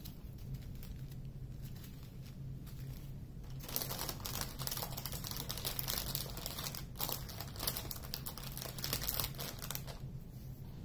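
Plastic bags of diamond-painting drills crinkling and rustling as they are handled, starting about four seconds in and stopping about a second before the end.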